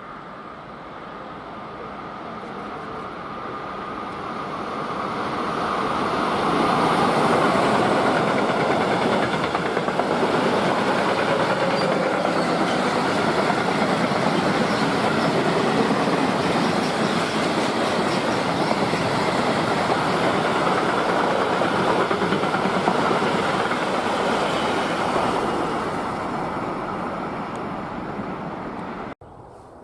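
A freight train passing: it grows louder over the first six seconds, runs loud and steady for nearly twenty seconds as the wagons go by, then fades before the sound is cut off abruptly near the end.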